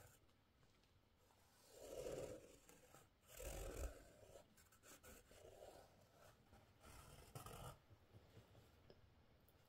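Faint scratching of a fine-liner pen drawing lines on stretched canvas, in a few short bursts of strokes.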